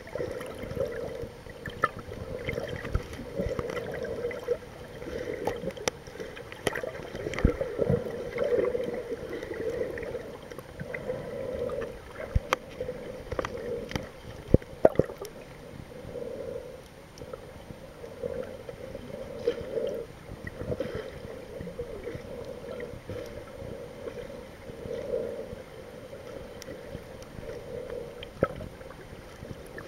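Underwater sound picked up by a camera held below the surface: a muffled, steady rush that swells and fades, with gurgling water and scattered sharp clicks and knocks, a few louder ones about halfway through.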